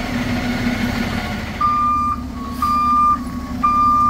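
Garbage truck's diesel engine running steadily. About a second and a half in, its reversing alarm starts beeping, roughly once a second, three beeps in all.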